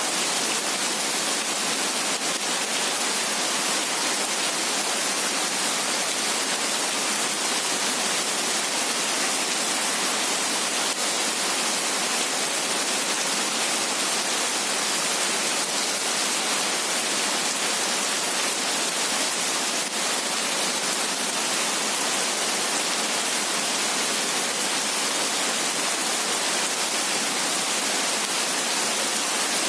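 Heavy rain falling steadily: a dense, even hiss, strongest in the high end and with almost no low rumble.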